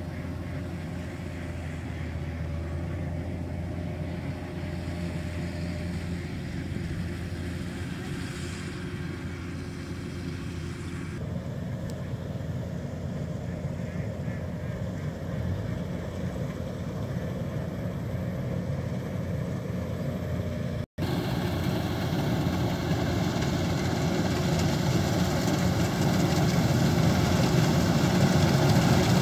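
Kubota DC-93 rice combine harvester engine running steadily as it cuts a dry rice field, growing louder near the end as the machine comes closer.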